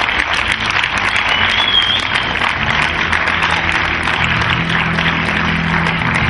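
Cinema audience applauding, with a couple of short high whistles, at the end of a film screening. A low steady tone comes in underneath about halfway through.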